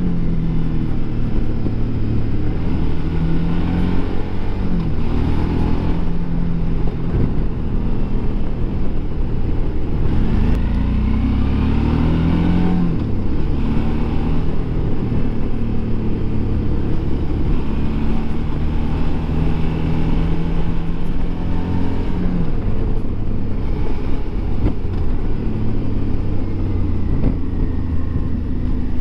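Suzuki V-Strom DL650 XT's 645 cc V-twin engine running under way, its revs rising and falling over and over as the throttle opens and closes. A clear climb in revs starts about ten seconds in and drops away around thirteen seconds.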